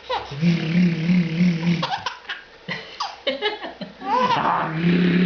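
Baby laughing in rhythmic runs of belly laughs, with a quieter gap in the middle and higher-pitched gliding cries before the laughing picks up again near the end.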